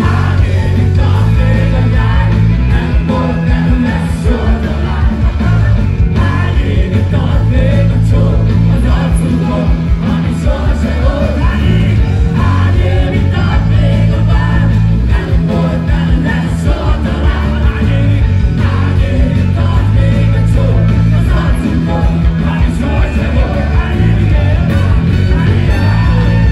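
Rock band playing live and loud: electric guitars, bass and drums with a singer, heard from among the audience.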